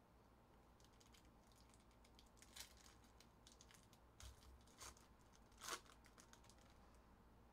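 Foil trading-card pack being torn open and crinkled by hand: a run of faint crackling tears, the loudest about three quarters of the way through.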